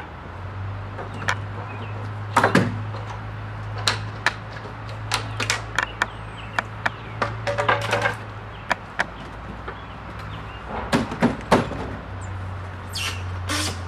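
Brick mould being pried off a pre-hung steel door with a pry bar: an irregular run of sharp knocks, clicks and short creaks as the trim and its nails are worked loose. A steady low hum runs underneath.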